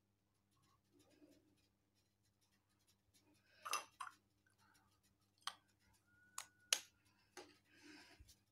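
Near silence broken by a handful of faint clicks and taps, starting about halfway through, from a metal lipstick tube and a small foam sponge being handled over a terrazzo floor.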